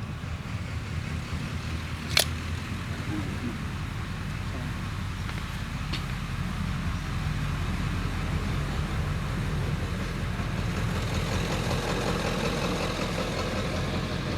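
A single sharp crack of a .22 break-barrel spring-piston air pistol firing, about two seconds in, over a steady low rumble. A much fainter tick follows a few seconds later.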